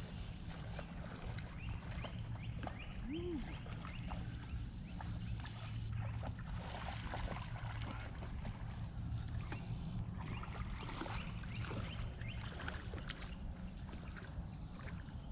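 Water splashing and sloshing in irregular bursts, from a hooked catfish thrashing at the surface while it is reeled in, over a steady low rumble.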